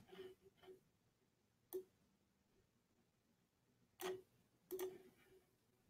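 Faint scattered clicks and taps over near-silent room tone, a handful in all, picked up by a room microphone.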